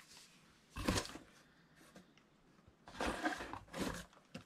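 A few short rustles and knocks of parcel packaging and parts being handled, with quiet gaps between them.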